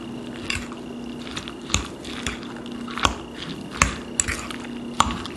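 A utensil stirring grated potato into a wet egg and vegetable mixture in a bowl: soft squelching, with four sharp clicks of the utensil against the bowl, the loudest near the end. A faint steady hum runs underneath.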